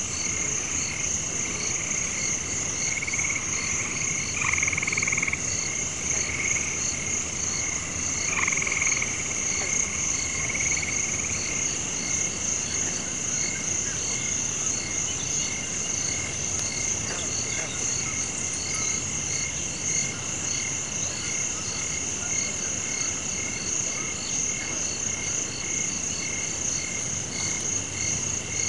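Night chorus of frogs calling in short, evenly repeated notes over a steady high-pitched insect drone, with a few louder frog calls in the first several seconds.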